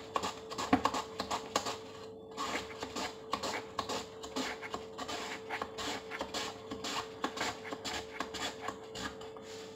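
Cucumber being sliced on a handheld plastic mandoline slicer into a plastic bowl: quick, repeated scraping strokes of the vegetable across the blade, two to three a second, with a brief pause about two seconds in.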